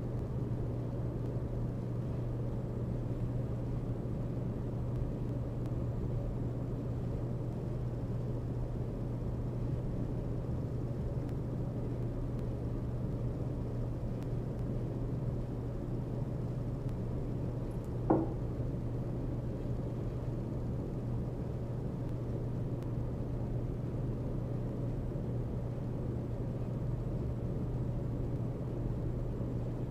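Domestic cat purring: a steady, even low rumble, with one short sharp sound partway through.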